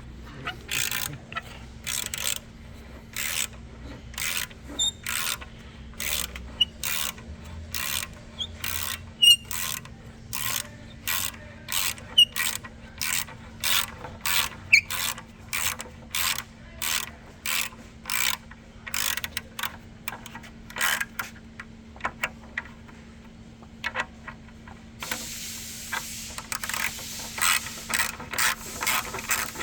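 Hand ratchet wrench clicking in regular strokes, about two a second, as the exhaust manifold nuts are worked loose, turning into a denser rattling in the last few seconds.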